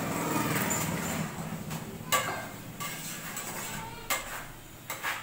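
A metal spoon clinking against a metal cooking pot during stirring. There are a few sharp clinks about two seconds in and a couple more near the end.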